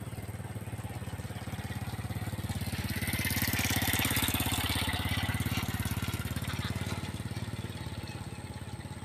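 Diesel-electric locomotive engine of a CC206 running as the train gets under way: a steady low rumble with a fast, even pulse, swelling louder with hiss for a few seconds in the middle.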